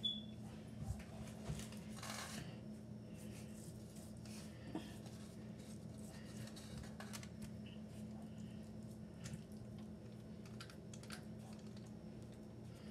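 Faint, scattered taps and crinkles of hands working marinade into seasoned steaks on a foil-lined baking pan, over a steady low hum.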